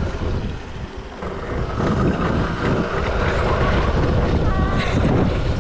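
Wind buffeting the microphone with a steady low rumble, growing louder about a second and a half in.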